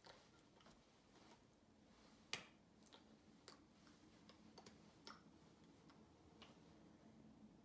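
Near silence: faint room tone with a scattering of small clicks and taps, the sharpest about two seconds in.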